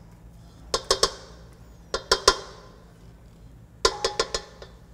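Ceramic cup knocked against the rim of a stainless steel stand-mixer bowl to empty brown butter into it. Three quick clusters of two to four sharp knocks, each ringing briefly in the steel bowl.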